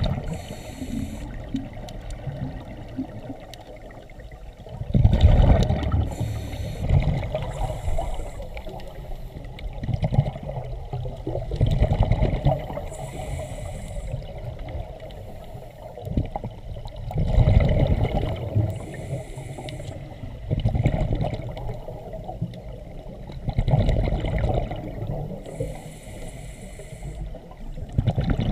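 Underwater scuba breathing through a regulator: a loud bubbling rumble of exhaled air every few seconds, with short hissing inhalations between them.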